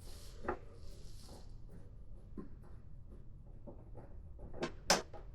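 Allen key working the windshield bolts on a motorcycle fairing: scattered small clicks and scrapes of the key in the bolt heads, with one sharper click near the end.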